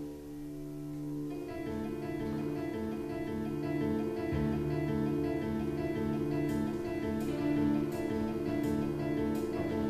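Background music: a held chord, then strummed acoustic guitar comes in about a second and a half in, with a light ticking beat joining in the second half.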